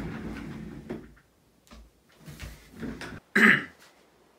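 A person shifting about in a padded gaming chair: rustling and soft knocks, then one louder, sharp knock about three and a half seconds in.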